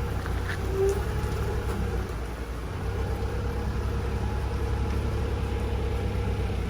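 A steady low engine hum, as of an engine idling.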